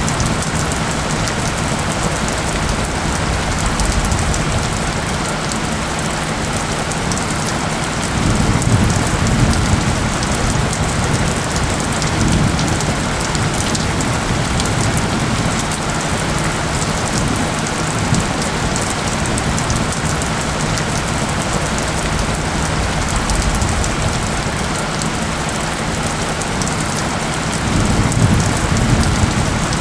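Steady rain pattering on surfaces, an even hiss of drops, with a low steady hum of tones underneath. Low rumbling swells rise about a third of the way in and again near the end.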